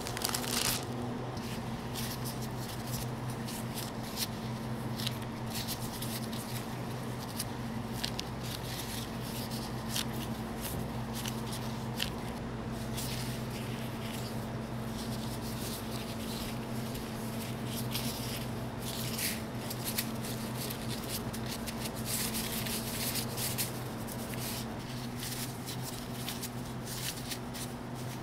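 Thin disposable plastic gloves crinkling and rustling with small irregular clicks as hands press and shape a starch-dusted ball of sticky rice dough around red bean paste, over a steady low hum.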